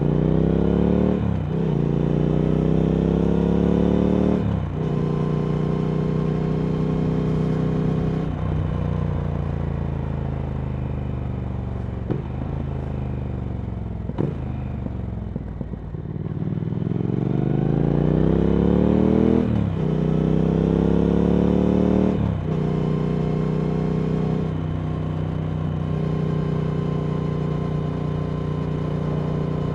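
Triumph Speed Twin 1200's parallel-twin engine through a Vance & Hines slip-on exhaust, ridden under way. It climbs in revs with a sudden drop in pitch at each of three upshifts, then runs down slowly for several seconds as the bike slows. It pulls up through two more shifts and settles to a steady cruise.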